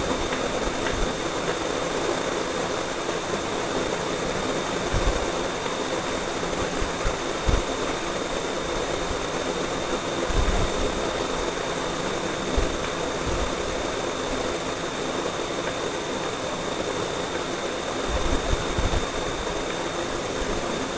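Steady background hiss with a low hum and a thin high whine, broken now and then by a few soft low bumps.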